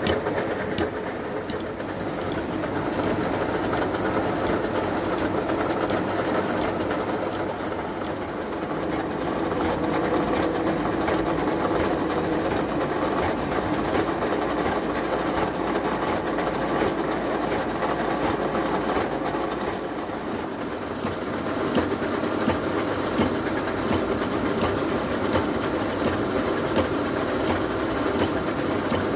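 1M63 heavy engine lathe running while facing a crooked workpiece: a steady machine drone with a faint regular clicking, as the cutting tool meets the uneven end face on each turn.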